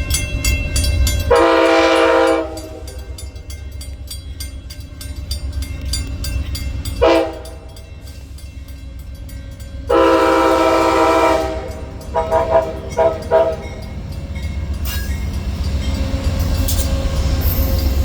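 Train horn blowing a chord of several tones in separate blasts: a long one, a short one, another long one, then a few quick short toots. Under it runs the train's steady low rumble, which grows louder near the end.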